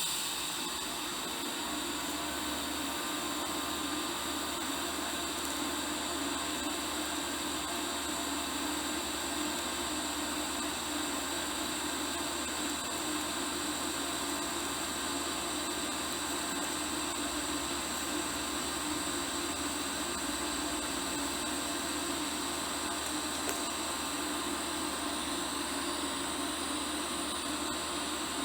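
TIG welding arc burning steadily on mild steel: an even hiss with a low hum running under it, with no break.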